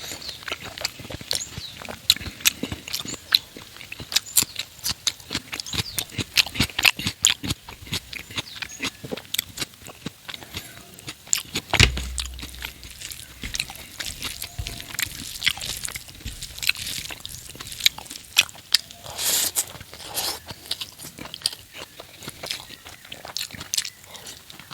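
Close-up chewing and mouth sounds of someone eating fatty pork curry with rice: irregular wet clicks and crunches, with a single low thump about twelve seconds in.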